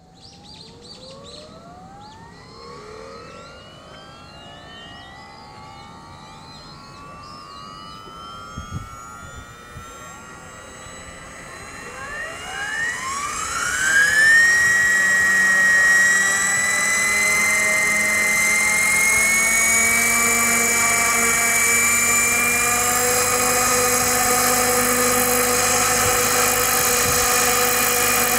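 Radio-controlled scale Bell 222 helicopter spooling up on the ground: a faint whine rises slowly in pitch for the first dozen seconds, then climbs quickly to full rotor speed about halfway through. After that the drive whine and rotor run loud and steady, creeping slightly higher in pitch. A few birds chirp faintly at the start.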